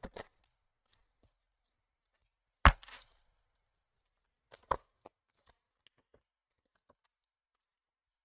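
Oracle cards being shuffled and laid down on a table: a few light clicks at the start, a sharp knock of the deck or a card on the tabletop about two and a half seconds in, a smaller knock about two seconds later, then a few faint taps.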